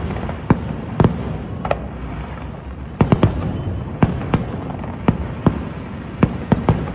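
Aerial fireworks bursting in an irregular series of about fifteen sharp bangs, with quick clusters about three seconds in and again near the end.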